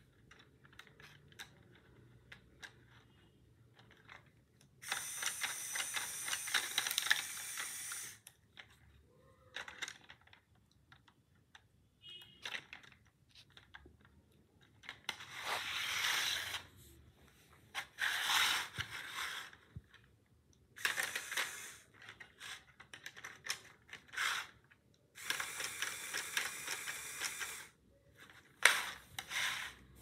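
Small LEGO machine driven by an electric motor, its plastic gears and linkages running with a rapid clattering rattle. The rattle comes in about six bursts of one to three seconds, with scattered ticks and clicks between them.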